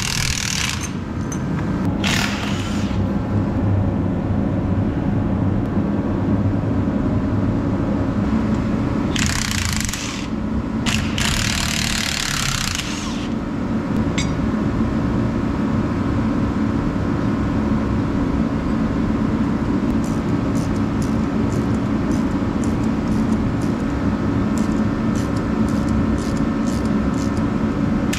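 An engine runs steadily, with brief bursts of hissing noise three times in the first half. A quick run of light ticks begins about two-thirds of the way in.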